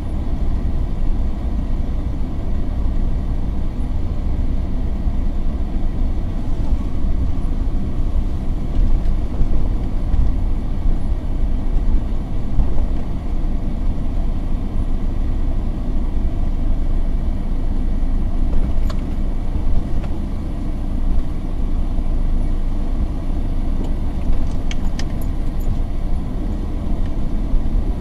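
A vehicle driving slowly on an unpaved dirt road, heard from on board: a steady low rumble of engine and tyres, with a few faint clicks in the second half.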